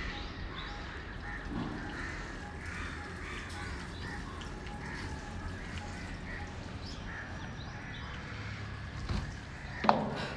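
Birds calling and chirping over a steady low hum. Near the end comes a single sharp knock.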